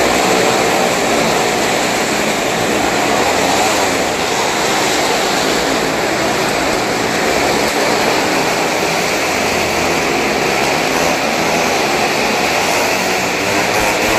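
Motorcycles and a car circling the vertical wooden wall of a well-of-death drum: a loud, steady engine din.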